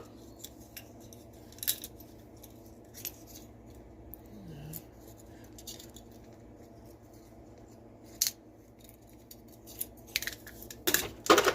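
Small metal hand tools clicking and tapping as they are picked up and set into a machinist's toolbox: scattered sharp clinks, with a quick cluster of louder ones near the end.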